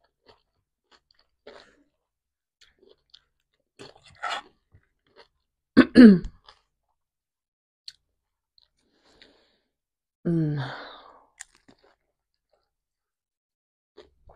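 Close-up mouth sounds of a person eating vegetable salad and a lavash roll: soft chewing, wet clicks and lip smacks. Two short voiced sounds from the throat fall in pitch, the louder about six seconds in and another about ten seconds in.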